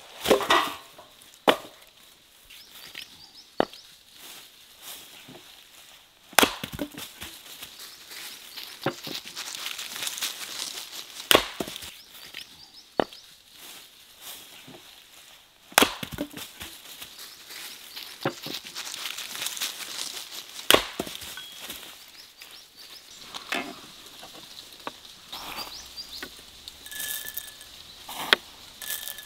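Axe chopping wood: single sharp chops at irregular intervals, a second to several seconds apart.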